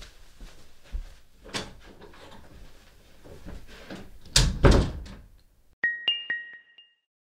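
A few dull thuds, like a door bumping, with the loudest pair about four and a half seconds in. About six seconds in, a bright twinkling sparkle sound effect follows: several quick ringing pings at two high pitches that fade within a second.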